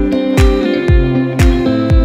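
Background music with a steady drum beat of about two beats a second under sustained plucked-string notes.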